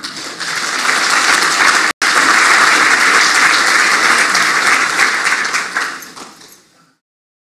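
Audience applauding, swelling quickly at the start, with a brief break about two seconds in, then fading away and cutting off into silence near the end.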